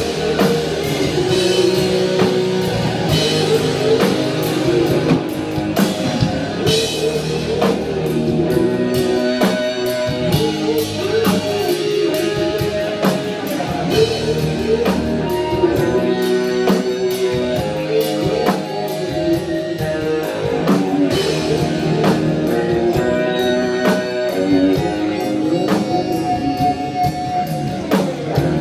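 Rock band music with guitar and drum kit playing a continuous, steady score.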